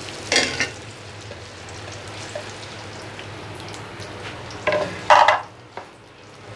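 Sliced onions sizzling in hot oil in a kadhai, a steady frying hiss. A few louder bursts of stirring and scraping with a steel ladle come about half a second in and again around five seconds in.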